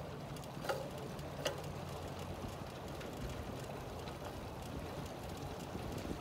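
Bicycle rolling along a concrete path: a steady low tyre rumble, with a couple of light clicks in the first second and a half.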